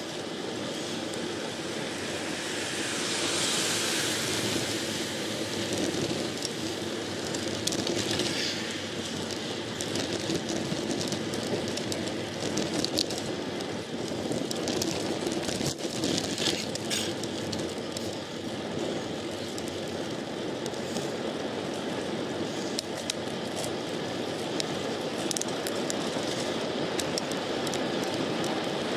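Road bicycle rolling along a road, picked up by a handlebar-mounted camera: steady tyre and wind rush, with a louder swell of hiss a few seconds in and scattered light clicks and rattles.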